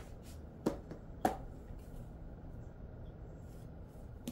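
Two sharp clicks about a second in, a little over half a second apart, among faint rustling and ticking from something being handled.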